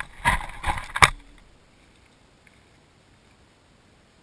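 GoPro camera being handled and settled on its small tripod: a quick run of knocks and scrapes against the camera in the first second or so, then only faint hiss.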